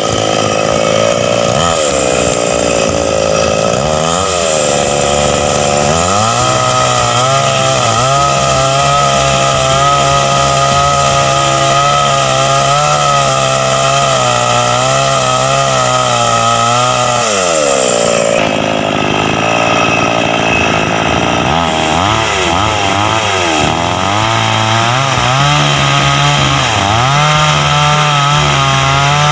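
Two-stroke chainsaw running at high revs, then cutting into wood: the engine pitch drops and holds lower under load for about ten seconds, rises again briefly as the bar comes free, and then drops and wavers as it cuts again.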